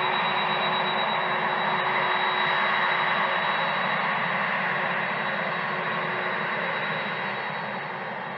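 Boeing 767 airliner's jet engines running at low taxi power: a steady rushing noise with a high whine held over it, slowly fading over the last few seconds as the aircraft moves past.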